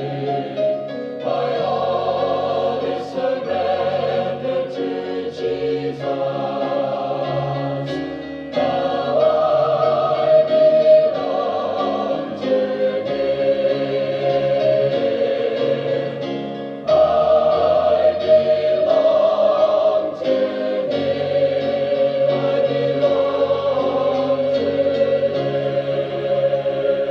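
Mixed choir singing a gospel anthem with piano accompaniment, holding sustained chords that change every few seconds. It grows louder about a third of the way in, and again a little past halfway.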